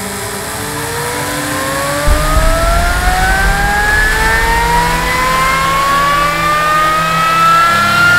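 Brake dynamometer drive spinning a brake disc up to speed: a steady rising whine, joined by a low rumble about two seconds in.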